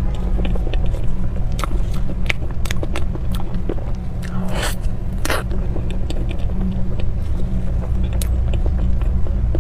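Close-miked eating sounds: biting and chewing of soft cream-filled pastries, with scattered wet clicks and smacks. A steady low rumble runs underneath.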